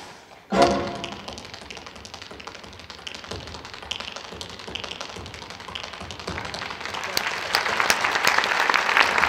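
Tap dancing: tap shoes striking a stage floor in quick runs of sharp clicks. A short band chord sounds about half a second in, and the taps grow denser and louder toward the end.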